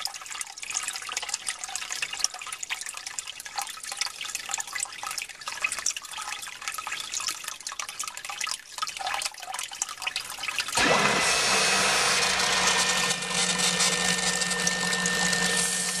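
Water pouring and splashing into a sump pit; about 11 seconds in, the float triggers a Basement Watchdog BWSP 12-volt backup sump pump, which switches on suddenly and runs with a steady hum and a thin high whine.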